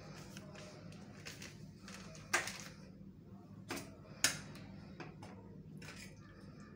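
Flat steel spatula stirring milk powder into thickened milk in a stainless-steel kadhai, with a few sharp clacks and scrapes of metal on the pan. The loudest comes a little over two seconds in and two more around four seconds in, over a faint steady low hum.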